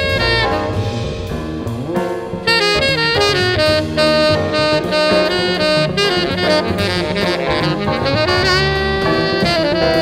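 Background music: an instrumental tune with a melodic lead line over a steady beat.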